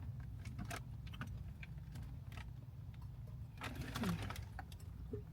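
Scattered clicks and rustles of someone rummaging inside a car for a misplaced tumbler, over a steady low cabin hum. There is a brief faint murmur about four seconds in.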